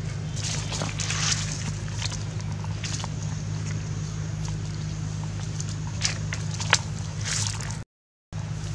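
Dry fallen leaves rustling and crackling underfoot on dirt ground, over a steady low hum, with a couple of sharp clicks; the sound cuts out briefly near the end.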